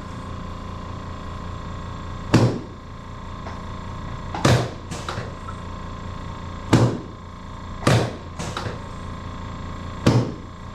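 Chiropractic drop-table sections snapping down under the chiropractor's thrusts: seven sharp thuds about every one to two seconds, some close together in pairs, over a steady mechanical hum.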